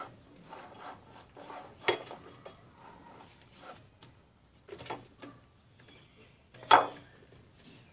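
Spatula scraping creamed margarine and sugar from the sides of a glass mixing bowl, with light taps and knocks of utensils on the glass, and one sharper clack near the end.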